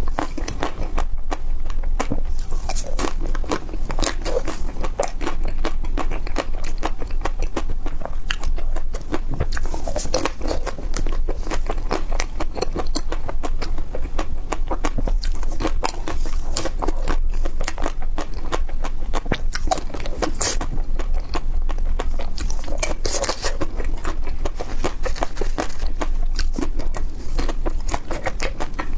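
Close-up biting and chewing of crispy ice cream: a continuous run of quick crunches and crackles, bite after bite, over a steady low hum.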